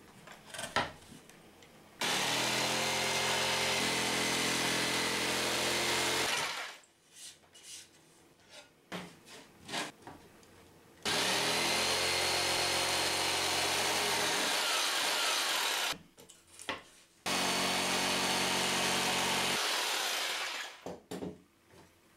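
Black & Decker jigsaw cutting through a thin wooden board, running in three bursts of a few seconds each. Between the bursts come short knocks and clicks as the board and saw are handled.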